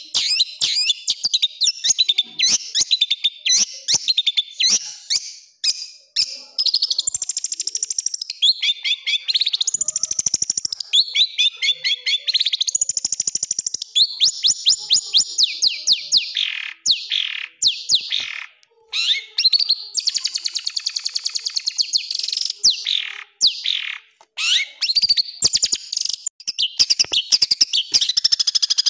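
Long-tailed shrike (cendet) singing a fast, varied song full of mimicked material: rapid chirps, quick trills and short high whistles strung together with barely a break.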